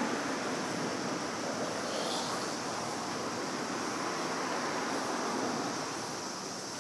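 Steady rushing outdoor background noise, easing slightly near the end.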